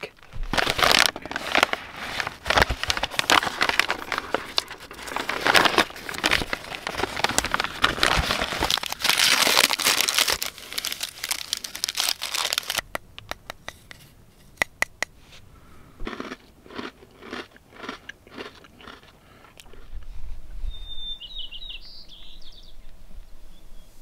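Paper wrapper crinkling and tearing as it is peeled open by hand. The crinkling is dense for about the first half, then thins to a few scattered crackles.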